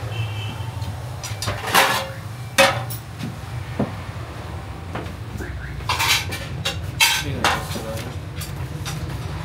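Metal dishes and pots being handled, with several sharp clanks of steel trays, bowls and pots, the loudest about two and a half seconds in and a cluster around six to seven and a half seconds, over a steady low hum.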